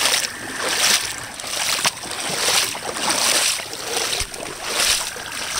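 Feet wading through floodwater, a swishing splash with each step, about every three-quarters of a second.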